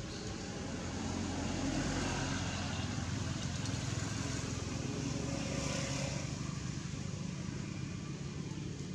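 Steady low rumble of outdoor background noise, with no clear animal calls.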